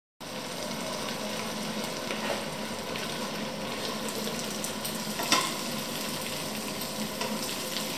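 Diced potatoes frying gently in oil in a pan over low heat: a steady, even crackling sizzle that cuts in suddenly. About five seconds in there is one sharp clink as the cover is lifted off the pan.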